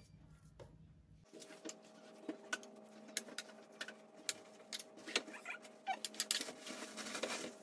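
Potato layer being spread and pressed flat in a buttered frying pan: many light, irregular clicks and taps of utensil and food against the pan. Over it, a steady hum that starts about a second in.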